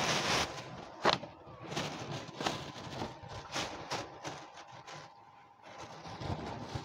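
A cat eating dry kibble from a plastic tray, with irregular crunching clicks as it chews; one sharper click comes about a second in.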